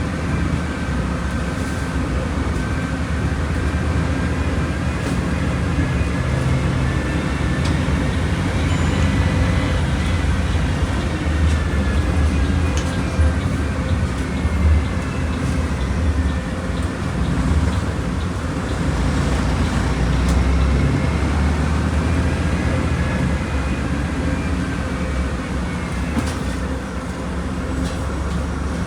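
Volkswagen Volksbus 17.230 Euro 6 bus engine running while the bus is under way, a steady low rumble with a higher whine that slowly rises and falls in pitch as it speeds up and eases off.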